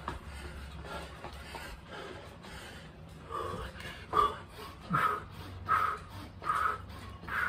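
A man breathing hard from exertion: after a quieter start, sharp, loud exhales come about once a second from about three seconds in.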